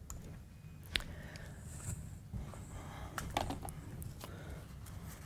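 Quiet pause in a hall: a steady low room hum with a few faint clicks and rustles, one about a second in and a small cluster near the middle.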